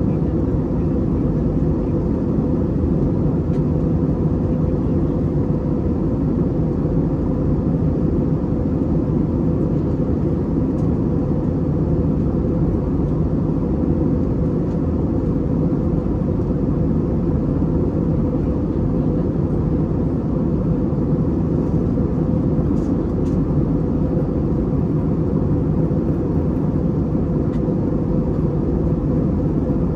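Steady cabin noise of an Airbus A320neo in flight: its Pratt & Whitney PW1100G geared turbofan engines and the airflow make an even, low-pitched rush with a faint steady hum above it.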